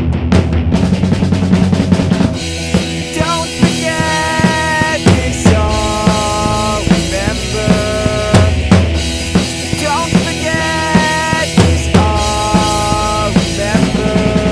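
Instrumental passage of a rock song: a drum kit keeps a steady beat under electric guitar. From about two seconds in, a melody of held notes runs over it, each note lasting about a second.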